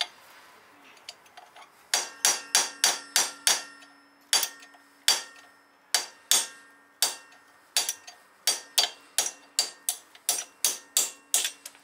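Hammer striking a punch to drive a broken wheel stud out of a Triumph Spitfire's rear hub: a long series of sharp metal-on-metal blows, about three a second, each with a brief ring. The blows start in earnest about two seconds in, after a short pause.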